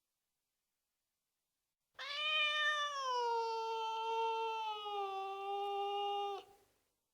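A tomcat gives one long, drawn-out meow of about four seconds, starting about two seconds in. Its pitch slides down and then steps lower once more before the call stops abruptly.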